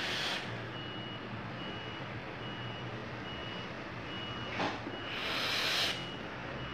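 A person vaping: breathy hisses of vapour being drawn and blown out right at the start and again about five seconds in, the loudest sounds. Under them runs a steady train of short high electronic beeps, about one every 0.8 seconds, like a vehicle's reversing alarm. A single click comes just before the second hiss.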